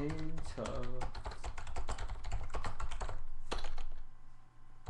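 Typing on a computer keyboard: quick, irregular runs of key clicks, with a brief spoken word near the start.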